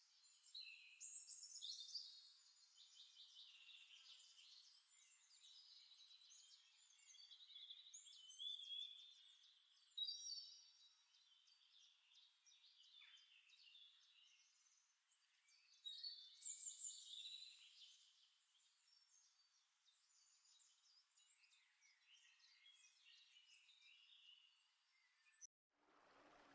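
Several birds chirping and singing faintly in short, overlapping high-pitched phrases, cutting off abruptly near the end.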